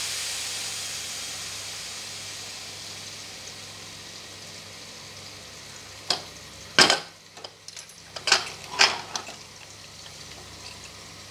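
Cubed potatoes sizzling as they fry in oil in a covered kadai, the hiss fading over the first few seconds. Then four sharp clatters of metal cookware, the loudest about seven seconds in.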